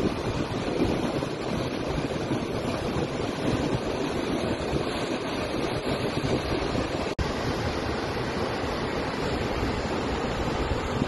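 Steady rushing water of a waterfall and its rocky creek, with a momentary dropout about seven seconds in.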